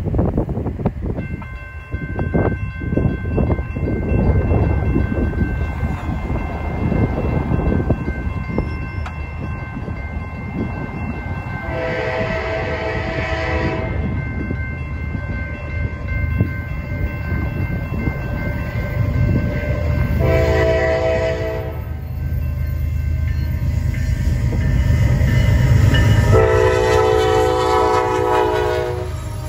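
Railroad crossing bell starts ringing about a second in, with the gates coming down, while an approaching Kansas City Southern diesel locomotive blows its horn three times, the last blast the longest. The locomotive's engine rumble grows louder near the end as it reaches the crossing.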